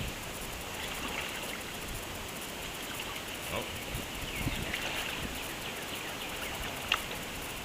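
River ambience from a kayak: a steady hiss of moving water and outdoor background, with a few small clicks and knocks, one sharper click near the end.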